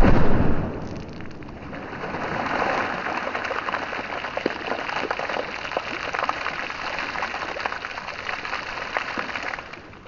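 A "Dum Boom" petard firecracker going off on a pond: a sudden bang at the start, then a long hissing, crackling spatter with many small pops that stops abruptly near the end.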